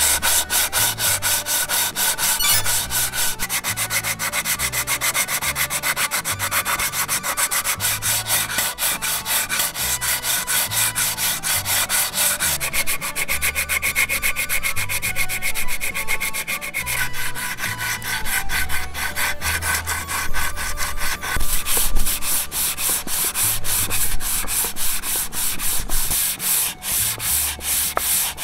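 Coarse 120-grit sandpaper on a hand sanding block rubbed over a raw wooden cutting board in quick, even back-and-forth strokes: the first, coarsest pass to smooth the board's rough surface.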